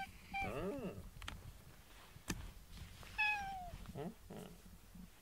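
Lynx-point cat meowing close to the microphone: a short meow about half a second in, then a longer meow falling in pitch about three seconds in.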